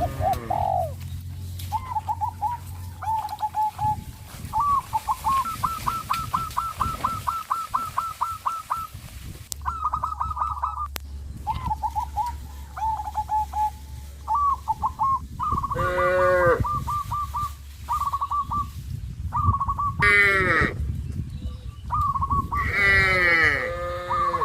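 Small birds chirping in quick repeated runs, with three louder farm-animal calls falling in pitch about two-thirds of the way in and near the end.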